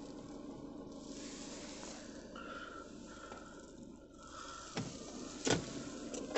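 Steady low drone inside a car cabin, with two sharp knocks about five seconds in.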